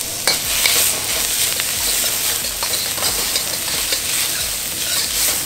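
Chopped garlic, ginger and red chili sizzling in hot sunflower oil in a wok, with a metal spatula scraping and tossing them around the pan.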